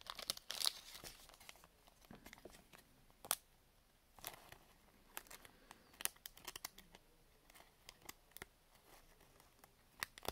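Trading cards being handled by hand: faint rustling and sliding of card stock, broken by a few sharp clicks and snaps every second or two.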